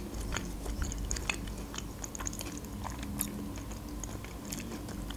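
A person chewing a mouthful of food with the mouth closed: a run of small, irregular wet smacks and clicks.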